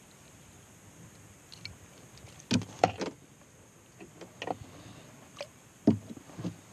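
Irregular light clicks and knocks of fishing gear being handled while untangling line. The loudest knocks come between two and a half and three seconds in and again just before six seconds.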